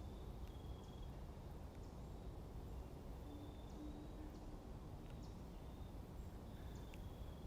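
Faint outdoor ambience: a low steady rumble with scattered short, high bird chirps, and a brief low hum about three seconds in.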